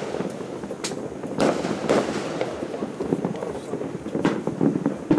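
Many distant New Year's fireworks and firecrackers going off at once: a steady dense crackle of explosions with sharper bangs standing out about a second in, near two seconds and again past four seconds.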